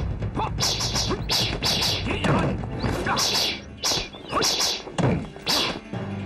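A fast run of sharp whacks and clashes of weapons striking in a martial-arts bout, several a second, with short breaks near the middle and toward the end.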